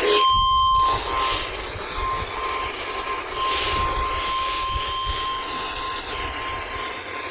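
NOAA Weather Radio 1050 Hz warning alarm tone, one steady tone that fades in and out under heavy radio static and hiss.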